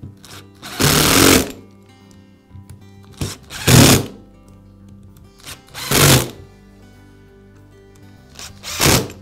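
Power screwdriver driving the screws of a sander's top cover in four short bursts, about two to three seconds apart, over background music.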